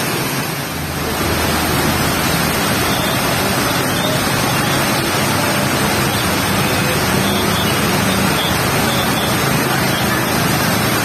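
Heavy tropical rain pouring down steadily, a dense hiss that gets a little louder about a second in.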